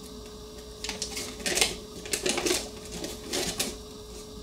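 Clicks and rustles of plastic toy parts being handled, in several short bursts, over a faint steady hum.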